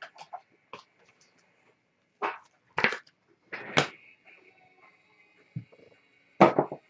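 Trading cards and a foil pack being handled: a few brief, irregular rustles and taps.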